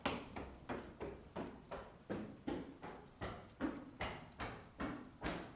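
Hurried footsteps, a fast even pace of roughly three steps a second, each a soft thud with a light click.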